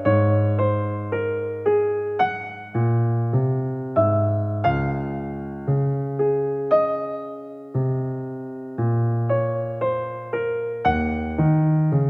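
Soft background music: a slow electric piano melody of single decaying notes and chords.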